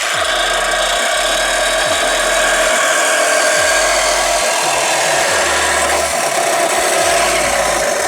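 Power saw blade cutting steadily through car body sheet metal, a loud, continuous rasping run without a break.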